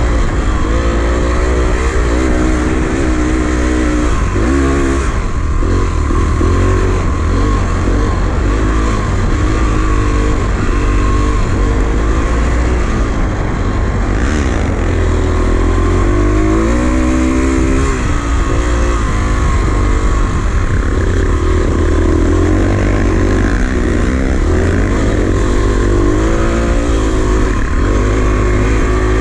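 Enduro dirt bike engine running under load, its revs rising and falling over and over as the rider works the throttle and gears on a rough dirt track, over a constant heavy low rumble.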